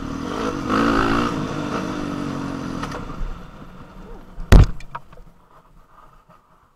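Honda CRF450 dirt bike's single-cylinder four-stroke engine running, fading over the first three seconds. A single sharp, loud knock comes about four and a half seconds in, followed by a few lighter clicks.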